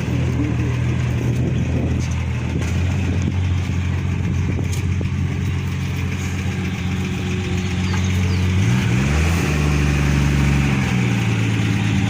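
Ford F-75 pickup's Willys six-cylinder engine idling steadily, then revving up briefly about nine seconds in before settling back to idle.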